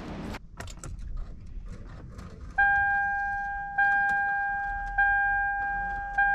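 A few light clicks, then a 2008 Toyota Camry Hybrid's electronic warning chime starts about two and a half seconds in: a steady beep that restarts about every second and a quarter, four times, each one fading a little before the next.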